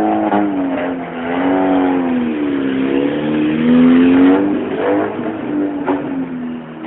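Fiat Uno engine revved up and down repeatedly through a loud exhaust, with a few sharp exhaust pops between the revs.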